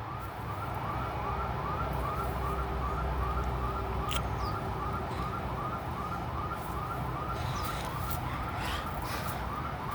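Building intruder alarm siren sounding faintly: a short rising whoop repeated about three times a second over a low background rumble.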